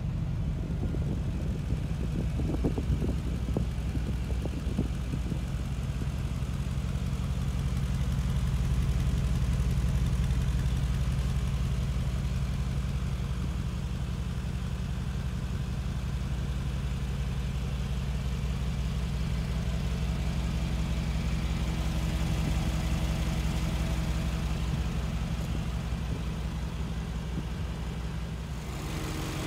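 The 2019 Mercedes-AMG G 63's twin-turbo V8 idling steadily, a low, even engine note.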